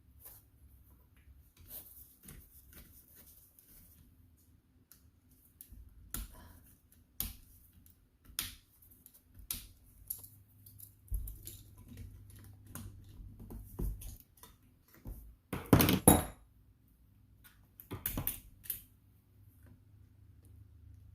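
Hand tools and small metal parts clinking and knocking as a pool pump motor is worked on: irregular clicks throughout, with a louder clatter about three quarters of the way through and another shortly after.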